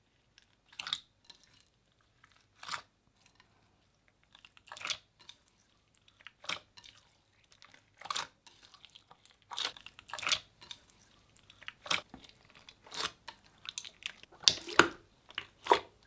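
Slime being squeezed and pressed by hand: a series of short sticky pops and crackles, spaced out at first and coming closer together in the second half.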